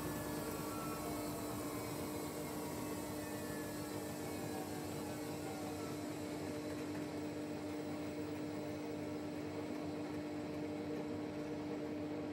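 Samsung WW90 front-loading washing machine winding down from its 800 rpm pre-wash spin: the motor's whine slides steadily down in pitch over a constant hum, and the rushing noise of the drum fades about halfway through.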